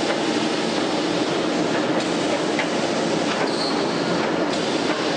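Steel strip slitting line machinery running: a steady mechanical rumble and rattle, with a few faint clicks.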